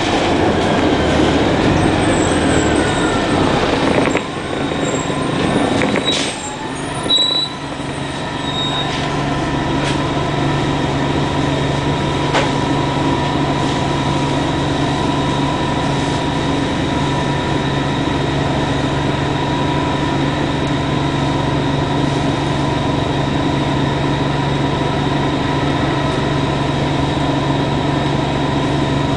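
A 1999 Orion V bus's Detroit Diesel Series 50G natural-gas engine and drivetrain, first moving with a changing whine. The sound drops and unsettles about four seconds in, then settles into a steady idle with a low hum and a high whine for the rest.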